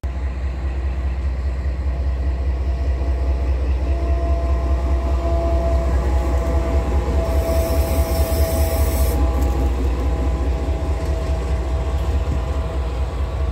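Canadian Pacific diesel locomotive and freight train passing close by, a steady heavy rumble with faint steady tones above it. A brief high hiss comes about seven seconds in and lasts about two seconds.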